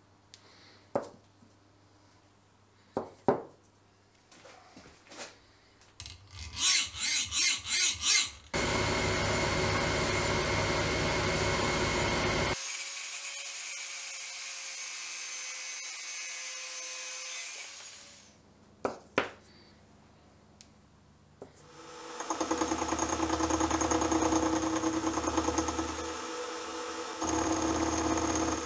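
A few handling clicks, then about six quick rhythmic strokes. Then an angle grinder with a cut-off disc slices through a metal rod for about four seconds and carries on more quietly for several seconds after the cut. Near the end a milling machine runs with its end mill cutting metal.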